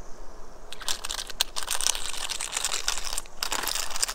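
A GoPro action camera rubbed face-down over rough asphalt, its front glass scraping on the grit in uneven strokes. The scraping starts about a second in and has a couple of short breaks. It is a scratch test of the front lens cover.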